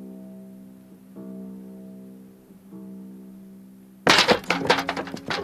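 Quiet cartoon score of slow held notes, each struck and fading away, about three of them. About four seconds in, a sudden burst of loud clattering knocks on wood breaks in: the cabin window being pushed open.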